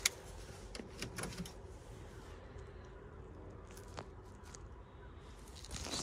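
Van key handled and turned in the ignition switch: a sharp click right at the start, a few lighter clicks and key rattles about a second in, and one more click near four seconds.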